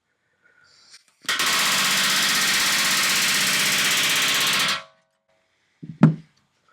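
Pneumatic rivet gun hammering in one continuous burst of about three and a half seconds, driving an AN470 universal-head aluminium rivet through the stabilizer skin and doubler. About a second later comes a single sharp knock.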